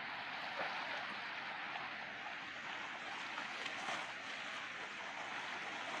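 Harbour water lapping and splashing, a steady watery hiss with a few sharper little splashes, one about half a second in and a couple near the middle.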